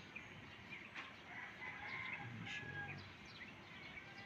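Birds calling: many short, quick chirps throughout, with a longer drawn-out call about halfway through.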